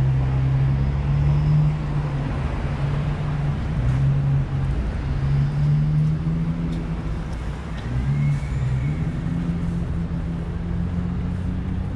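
A vehicle's motor running with a steady low hum that dips and rises in pitch a few times, over general traffic noise.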